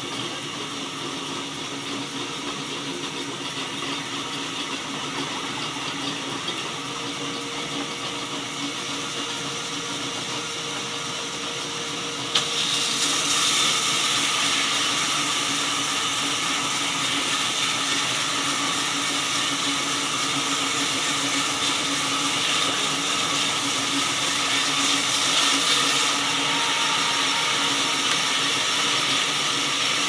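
Band sawmill running steadily. About twelve seconds in, the blade bites into a jackfruit log and a louder, hissing cutting sound takes over for the rest.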